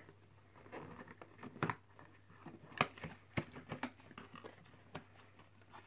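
Small cardboard box being opened by hand: flaps pulled apart and the contents handled, a scatter of faint clicks and cardboard rustles.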